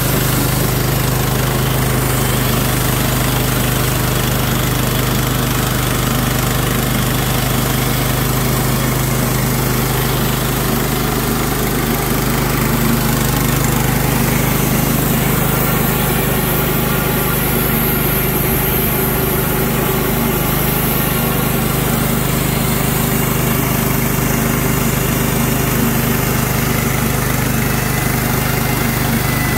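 Kohler Pro engine of a Clarke bandsaw mill running steadily at an even speed, a constant engine hum with no change in pitch.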